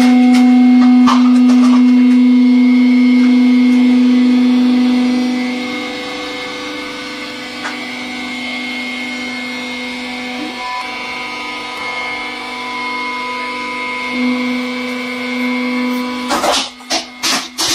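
Hydraulic press pump and motor running with a steady hum, louder for the first few seconds, then settling lower. Near the end comes a quick burst of cracking and crunching.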